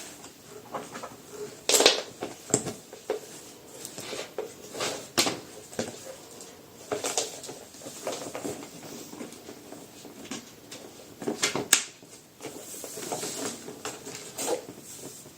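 Irregular clicks, knocks and rustling of small hard objects being handled. There are two sharper knocks, about two seconds in and near twelve seconds.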